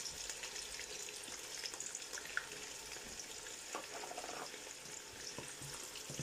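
Onions sizzling in hot oil in a large pot, stirred now and then with a utensil, with a few light scrapes; the sizzle eases off slightly.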